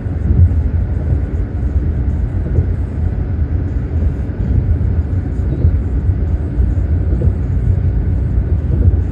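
Steady low rumble of a car driving at road speed, tyre and engine noise heard inside the cabin.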